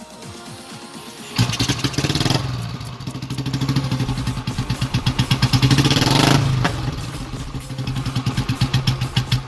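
Royal Enfield Bullet 350's single-cylinder four-stroke engine starting about a second and a half in and revving up for a few seconds. It then drops back to an even, thumping idle.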